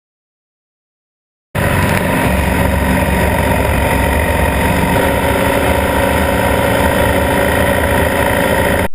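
BMW R 1250 GS Adventure's boxer-twin engine running steadily at a constant speed, starting abruptly about a second and a half in and cutting off just before the end.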